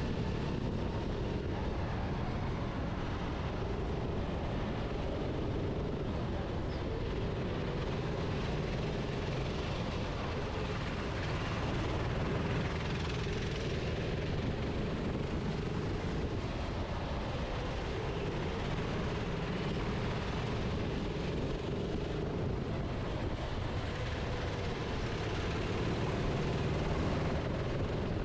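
Onboard sound of a racing kart's engine running at speed through a lap. Its note rises and falls slightly with the throttle over a steady noisy rush.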